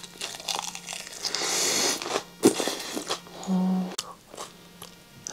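A mouthful of crisp lettuce salad being bitten and chewed, crunching irregularly, with one sharp crunch a little past halfway through the first half.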